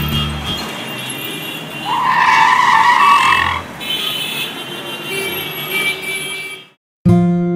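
Street traffic noise, with a vehicle's brakes screeching about two seconds in: a high, wavering squeal lasting about a second and a half. Near the end the sound cuts out briefly and strummed acoustic guitar music starts.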